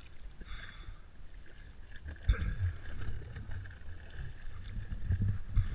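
Water sloshing and splashing close by in a lake, over the low rumble of a tow boat's engine idling ahead as it takes up the slack in the ski rope.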